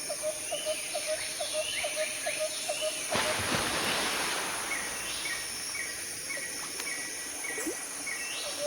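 Forest ambience: a steady high insect drone with animal calls over it. A rapid run of short low calls, about six a second, lasts about three seconds. A sudden rush of noise follows and fades. A run of evenly spaced higher chirps, about two a second, comes after.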